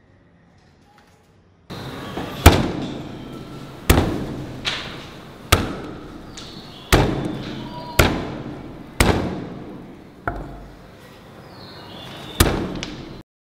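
The back of an axe smashing small citrus fruits on a wooden chopping block: about nine sharp blows at irregular intervals of about one to two seconds, each dying away afterwards. The sound starts suddenly about two seconds in and cuts off suddenly near the end.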